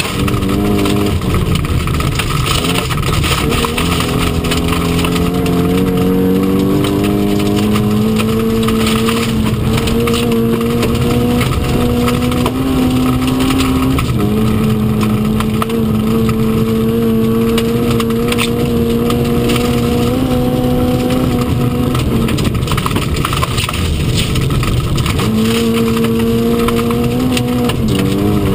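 A historic Mk1 Mini Cooper S's A-series four-cylinder engine, heard from inside the cabin, pulling hard at rally pace. Its pitch climbs through the revs and drops at a gear change about fourteen seconds in, then holds. It eases off for a few seconds and picks up again near the end, over a steady rumble of tyres and road noise.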